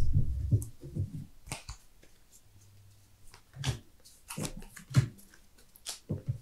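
Sleeved trading cards being handled on a playmat: a cluster of soft thumps in the first second, then a handful of separate sharp taps and clicks as cards are placed and moved.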